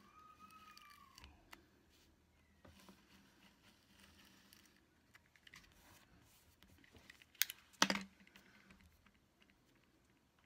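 Small clicks, taps and rustles of hands working paper planner pages, stickers and a hand-held tape dispenser. A brief rising-and-falling squeak comes near the start, and a couple of sharp crackles come about seven to eight seconds in, the loudest sounds here.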